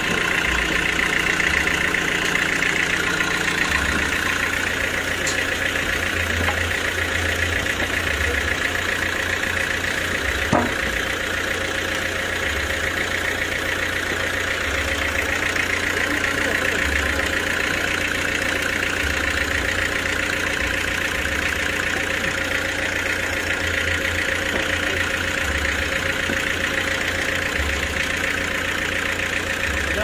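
Band sawmill machinery running steadily with an engine-like hum, the saw not audibly cutting. One sharp knock about ten seconds in.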